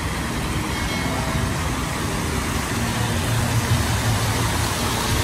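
Steady splashing rush of water from rows of small ground-level fountain jets bubbling up in shallow pools, with a low rumble underneath.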